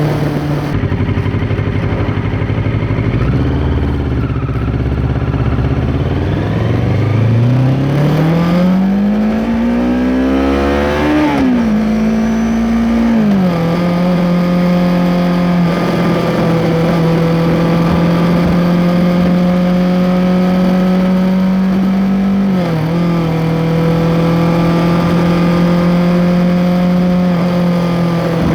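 Kawasaki Ninja 650's parallel-twin engine through an Arrow X-Kone exhaust with its dB killer, heard from under the seat while riding. The engine pulls up through the revs in one long rise, drops with two quick upshifts, then holds a steady cruising note with a brief dip about two-thirds of the way through.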